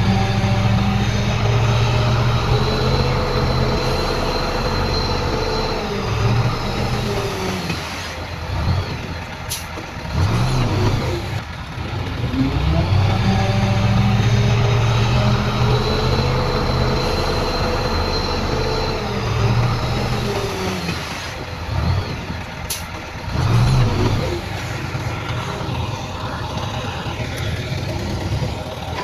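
Heavy diesel engine of earthmoving machinery working under load, its revs climbing, holding and dropping back in two long cycles. Two short, sharp hisses cut in, one about a third of the way through and one near the end.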